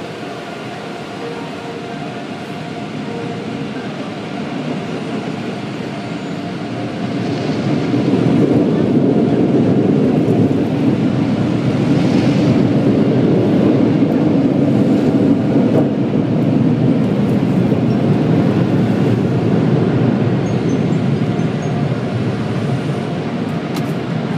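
Automatic car wash drying blowers running: a loud, steady rush of air, muffled through the car's windows and body. It swells about eight seconds in and eases off a little near the end.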